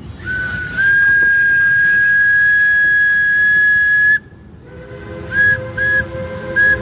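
Whistle of a 1920 Baldwin steam locomotive, blown at a road crossing: one long, loud steady blast that cuts off about four seconds in, then a few short toots.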